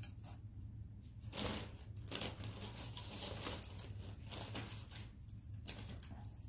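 Irregular crinkly rustling of bags and packing with light clinks of metal costume jewelry, as tangled pieces are handled and pulled apart.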